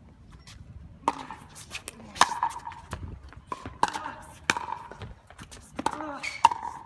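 Pickleball rally: paddles striking the hollow plastic ball back and forth, a string of sharp pops about one a second, each with a short ringing tone.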